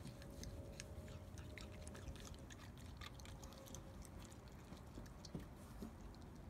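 Pet raccoon chewing halved seedless grapes: faint, irregular smacking and small clicks of its mouth.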